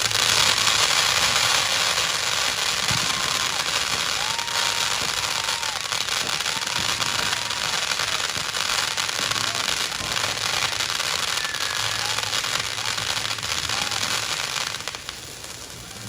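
Fireworks crackling: a dense, continuous rapid crackle of many small pops that dies down near the end.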